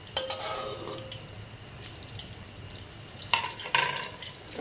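A minced-pork omelet deep-frying in a wok of hot oil, the oil crackling and popping steadily. A metal spatula clinks against the wok just after the start, then twice more, louder, about three and a half seconds in.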